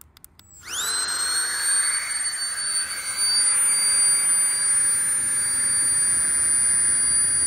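Small battery-powered inflation pump switched on after a few clicks: its motor spins up with a quickly rising whine, then runs with a steady high-pitched whine over rushing air. It is being used as a fire blower, pushing air into a dying campfire.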